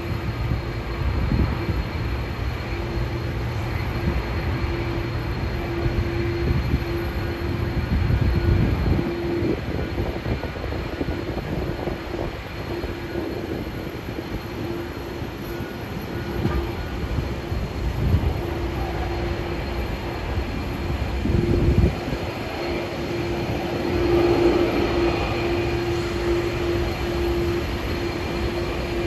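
Jet engine noise from an EVA Air Boeing 777-300ER's GE90 engines: a steady, rumbling drone with a held whine above it, swelling a little now and then.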